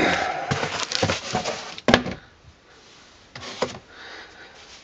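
Cloth and cardboard rustling and rubbing as a drawstring cloth bag is handled out of its box. A sharp knock about two seconds in, then a few brief, quieter scrapes.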